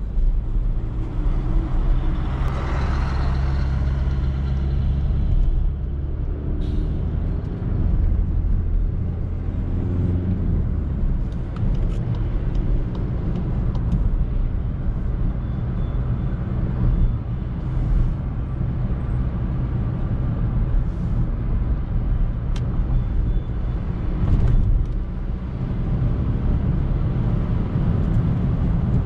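Steady low engine and road rumble inside a Volkswagen Polo in city traffic. About two seconds in comes a hiss from the air brakes of the dump truck alongside, lasting a second or two.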